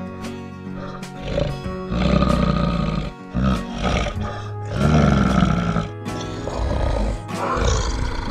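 Background music with a brown bear's deep growls laid over it, several times, loudest about two and five seconds in.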